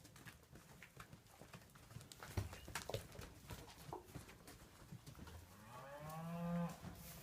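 Cattle mooing: one long moo in the second half, rising and then falling in pitch, with scattered knocks and clatters around it.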